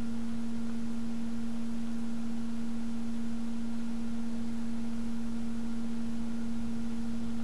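Steady electrical hum on the recording: one unchanging low tone with fainter overtones, and nothing else heard.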